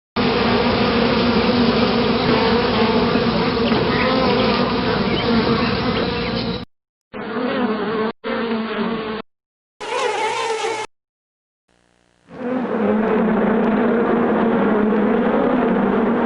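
Bees buzzing in a steady drone, from several separate recordings spliced together: the sound drops out abruptly for short gaps about seven, nine and eleven seconds in, then picks up again.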